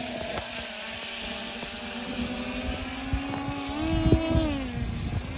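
Quadcopter drone's propellers humming in flight with a steady pitch that rises briefly near the end and falls back, over wind rumbling on the microphone.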